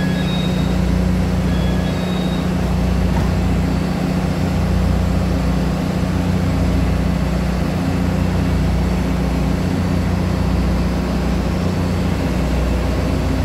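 Underfloor diesel engine of a DR3100 diesel multiple unit running steadily with the train standing at the platform: an even, loud low hum.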